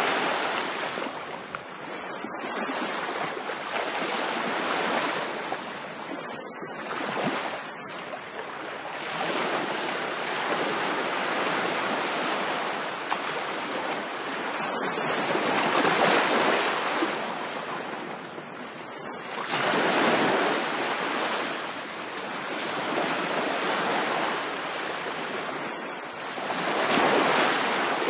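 Surf breaking on a beach, a steady wash of waves that swells and fades every few seconds.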